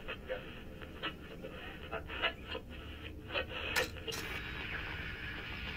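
Irregular light clicks and knocks from a portable boombox radio being handled and its controls worked, with two sharper clicks a little before the four-second mark.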